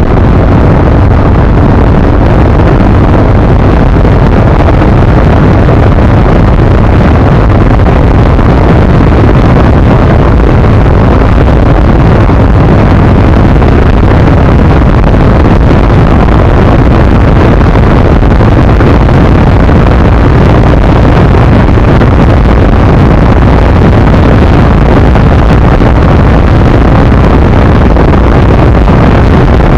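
ZiD 250 motorcycle ridden at speed, its engine running steadily under heavy wind buffeting on the microphone. Very loud, with no letup.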